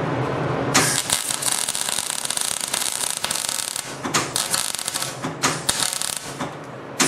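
Electric welding arc starting about a second in and crackling steadily, with a few short breaks as the weld is laid on steel pipe. The welder is set hot enough to burn through the metal. Before the arc strikes there is a low hum.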